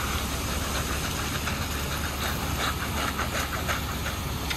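Ready-mix concrete truck running steadily with a low hum while wet concrete pours down its chute, with a run of short scraping clicks about midway.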